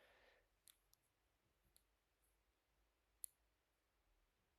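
Near silence broken by a few faint, sharp little clicks, the loudest about three seconds in, with a soft breath at the very start.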